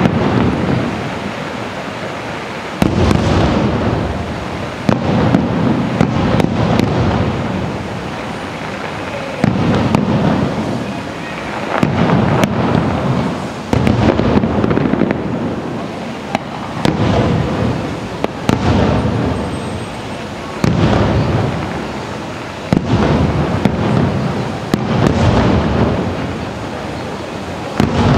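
Fireworks bursting in a steady series, a sharp bang about every two seconds, each followed by a rolling boom that dies away over a second or two, with crackling in between.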